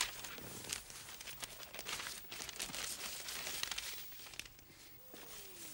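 Faint, irregular rustling and crinkling of paper as a newspaper is unfolded and held open. It dies away after about four and a half seconds.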